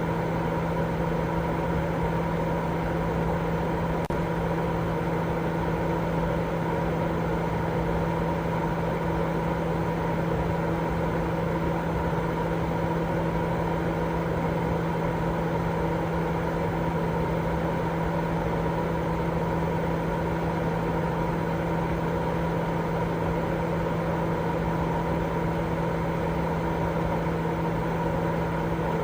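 Continuous white noise for baby sleep: an even, unchanging rush of noise with a steady low hum running through it.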